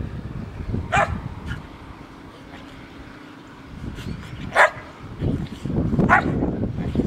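Samoyed barking three times in short, sharp barks, a few seconds apart. A low rumbling noise rises underneath near the end.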